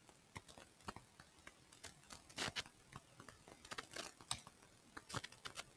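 Faint, irregular clicking of a computer keyboard and mouse, with a few louder clicks around the middle.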